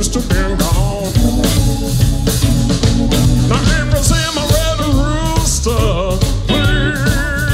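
Live blues band playing an instrumental passage: electric bass and drums under a lead line of bent, wavering notes.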